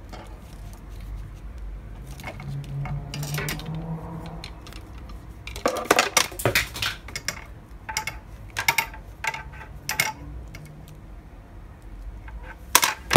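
Combination pliers working on a wire clothes hanger to cut off a short piece: sharp metallic clicks and clinks of the jaws on the wire. They come sparsely at first, then thickly from about halfway, with a couple of louder snaps near the end.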